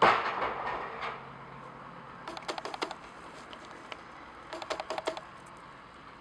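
Handling noise on the camera: a sudden loud bump that fades over about a second, then two short runs of rapid clicking, each about half a second long.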